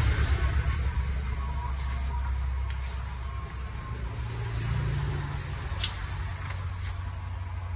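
Metal lathe running with a steady low hum during a trial cut with a freshly reground carbide turning insert; its tone shifts slightly about halfway through.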